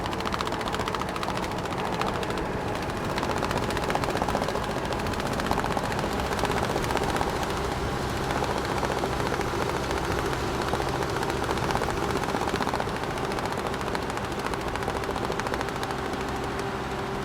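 Large truck driving with its engine running steadily, while straps flap against it in a fast, continuous rattle.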